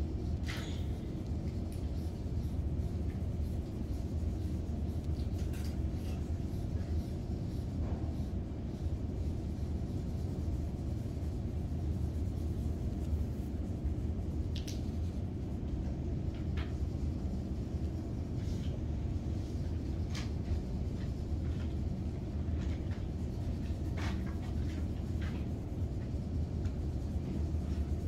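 Quiet classroom room tone: a steady low rumble, with scattered faint clicks and scratches of markers being used on paper.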